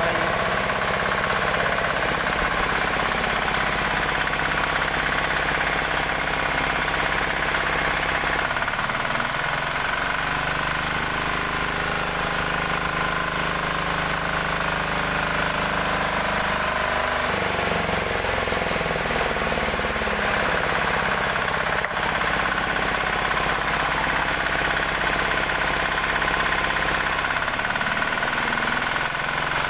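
18 hp diesel engine of a new sawmill running steadily under test, with a knocking diesel beat. Its pitch shifts a few times.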